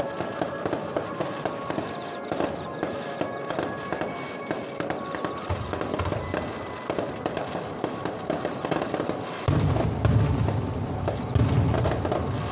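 Fireworks display: a continuous crackle of many small pops, with heavier booms of aerial shells bursting about five and a half seconds in and again, loudest, from about nine and a half seconds on.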